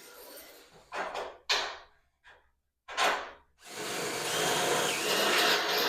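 A few short scraping bursts, then a small power tool running steadily with a faint high whine for about the last two seconds.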